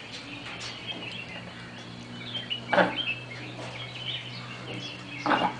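Birds chirping and twittering over a steady low hum, with two short, louder sounds, one about three seconds in and one near the end.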